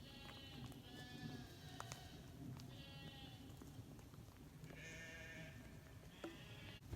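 Faint bleating calls from farm animals, about four in a row, each lasting around half a second to a second.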